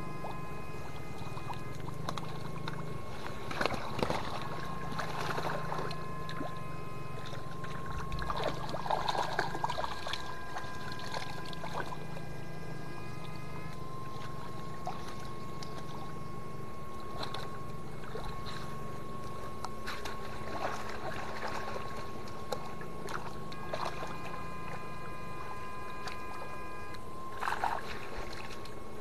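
Electric fishing shocker whining steadily at a high pitch while the current runs through the water, its overtones cutting in and out every several seconds, over a low electrical hum. Short splashes of the net pole in muddy water come a few times.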